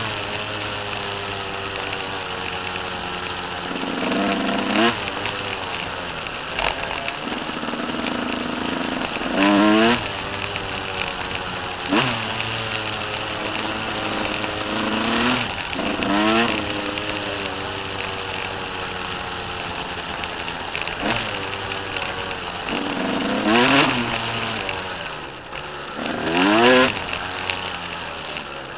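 Dirt bike engine running close by, its pitch surging up several times as the throttle is opened and then eased off again.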